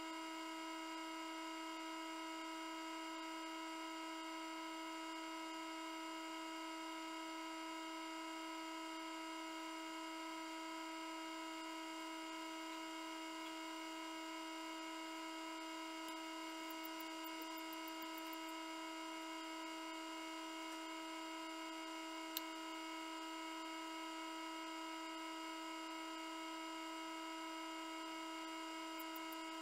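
Egg incubator's small fan motor running with a steady electric hum, with a single faint click about two-thirds of the way through.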